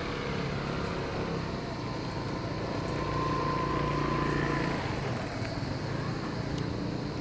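Outdoor street ambience with a motor vehicle's engine running on a nearby road, its hum swelling to its loudest around the middle as it passes.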